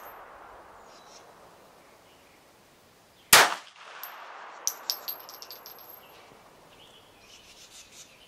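A single shot from a Smith & Wesson M&P 380 Shield EZ pistol (.380 ACP) about three seconds in, echoing briefly across the range. It is followed by a few light metallic clinks, and a second shot comes right at the end.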